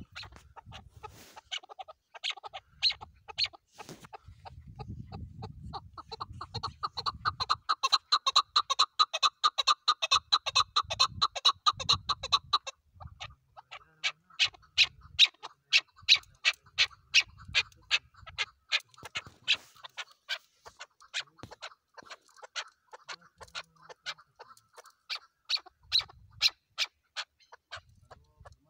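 Chukar partridge calling a long series of sharp chuck notes, about three a second. For several seconds in the first half the notes quicken into a loud, dense run, then break off briefly and carry on steadily.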